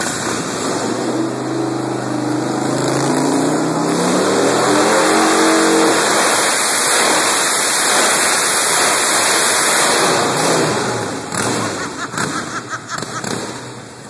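1999 Harley-Davidson Dyna Wide Glide's V-twin engine revving up, rising in pitch over the first several seconds, then held at high revs under a loud hiss as the rear tyre spins on the concrete floor in a burnout. The revs ease off and become uneven near the end.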